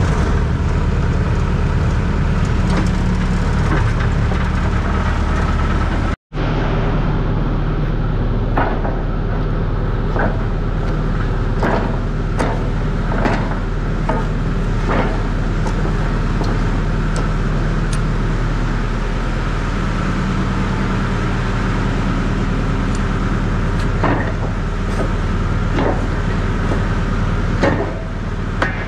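Skid loader engine idling steadily, with scattered metal clanks and knocks as its pallet forks are handled.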